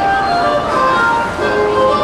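Background music, a melody of held notes changing pitch every half second or so, over a steady background hubbub.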